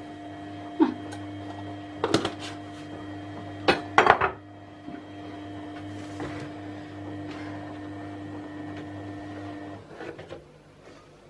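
A few sharp knocks and clatters of a bowl and utensils being handled while dough ingredients are added, over a steady hum with several tones that cuts off a little before the end.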